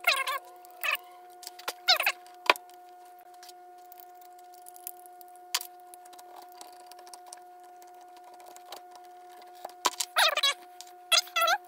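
Rubber fuel hoses squeaking in short bursts as they are worked onto carburetor fittings, with a few sharp metallic clicks of hose clamps and tools. A steady hum runs underneath.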